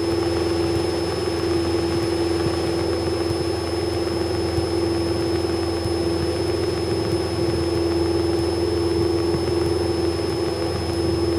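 Cessna 172's piston engine and propeller at take-off power during the initial climb, a steady, unchanging drone heard inside the cabin.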